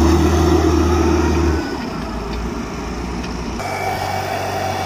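Diesel engine of a Caterpillar wheel loader running loud as its bucket pushes into a pile of sand, easing to a lower, steadier running sound after about a second and a half. Near the end the engine is heard from farther off.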